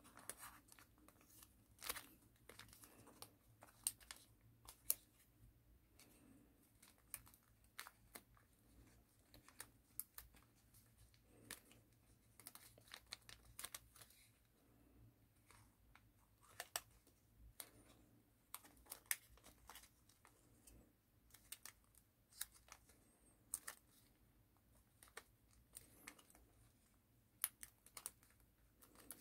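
Origami paper being folded and creased by hand: quiet, irregular crinkles and sharp ticks of the paper, scattered throughout with short pauses.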